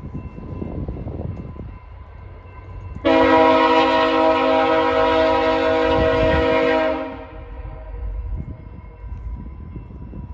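Diesel locomotive air horn sounding one long blast of about four seconds, a chord of several notes, starting abruptly about three seconds in and cutting off. A low rumble runs underneath before and after.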